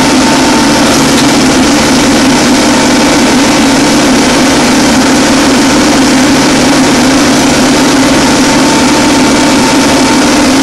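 Compact tractor engine running steadily, loud and close, with no change in speed.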